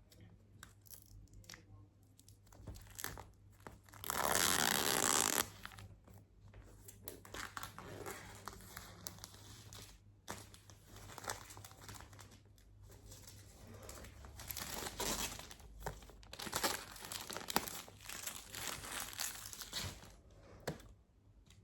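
Packaging being torn open and crinkled by hand. There is one long, loud tear about four seconds in, followed by scattered crinkling and light handling clicks.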